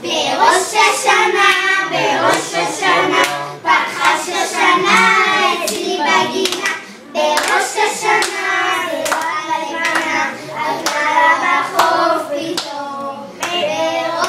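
Group of children singing a Hebrew Rosh Hashanah song together, with hand claps keeping time.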